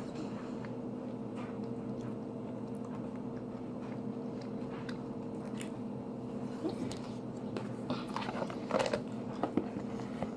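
A person chewing a mouthful of tuna salad, with soft wet mouth clicks that grow a little more frequent in the second half, over a steady low hum.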